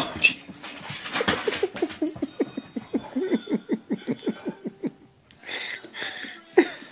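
Golden retriever vocalizing in a rapid run of short grunting sounds, about five a second, after a stretch of scuffling noise. A sharp knock comes near the end.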